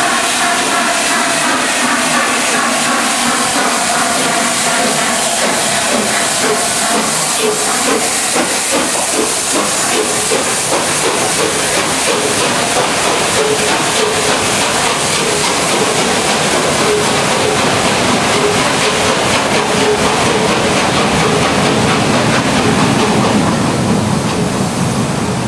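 LNER A4 Pacific No. 60009's three-cylinder steam engine starting away with its train: steady steam hiss and fast exhaust beats as the engine passes, then the coaches rolling by. A whistle-like tone sounds in the first few seconds.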